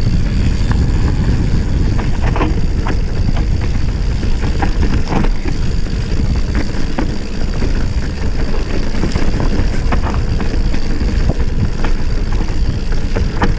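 Mountain bike riding fast down a stony dirt singletrack: a steady low rumble of tyres on dirt and wind on the microphone, with frequent short rattles and knocks from the bike jolting over stones.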